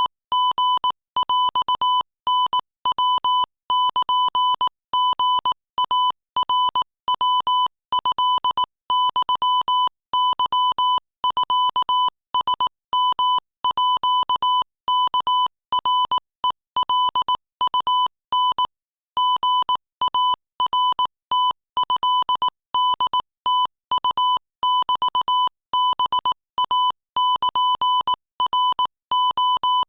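Morse code at 22 words per minute, sent as a single high-pitched beep tone keyed rapidly on and off in short dots and longer dashes, with brief gaps between letters and words. There is a slightly longer pause about two-thirds of the way through.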